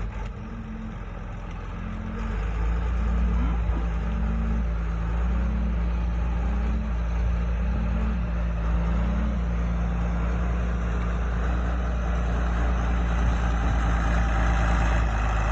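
Tractor engine running steadily while powering a bale processor that shreds straw bedding. For the first nine seconds a low hum pulses on and off about eight times over the engine drone.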